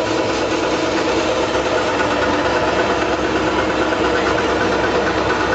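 Snack-chip production line machinery running: a steady, unbroken machine hum with several constant tones over a rumbling noise.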